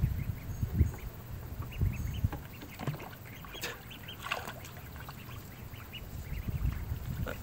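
Domestic ducks calling in short, scattered quacks, over a low rumble that is strongest in the first couple of seconds and returns near the end.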